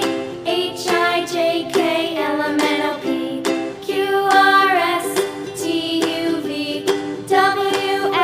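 Background music with plucked notes and a melody line over them.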